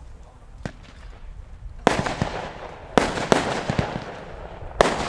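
Weco 'Jump for Joy' firework cake firing: after a short lull, a handful of sharp reports, the loudest about two seconds in and near the end, each followed by a fading rush of noise.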